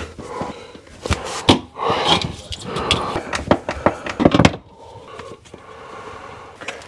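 Scattered knocks, clicks and clothing rustle as someone works and shifts about in a cupboard, busiest for the first four seconds or so and then quieter.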